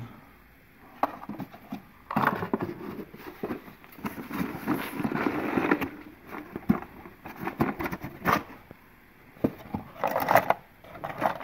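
Cardboard boxes being handled and shuffled, with rustling scrapes of cardboard and a few sharp clicks and taps as small model-train parts are moved about in a box. The longest stretch of scraping comes near the middle, and the taps bunch near the end.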